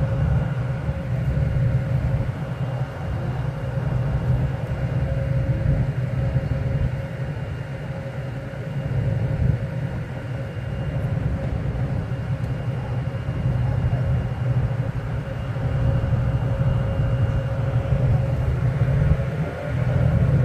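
A vehicle ferry's engine running, a steady low drone with a steady higher hum over it.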